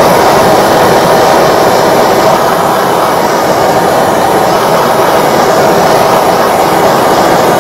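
Hand-held gas torch burning with a loud, steady hissing rush of flame, played over a clay plate to dry a brushed-on coat of black slip.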